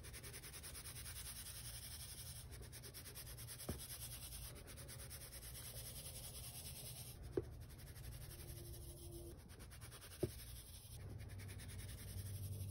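Baking soda being sifted through a fine stainless-steel mesh sieve, a soft, steady scratchy rustle of powder against the mesh. Three light taps stand out, about 3.5, 7.5 and 10 seconds in.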